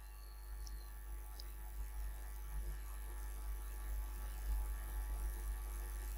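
Steady low electrical hum, with a couple of faint ticks about a second in.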